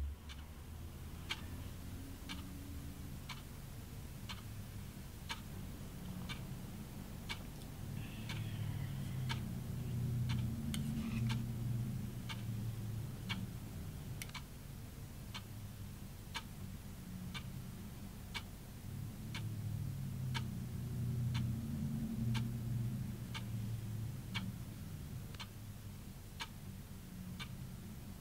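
A clock ticking steadily, about once a second, over a low hum.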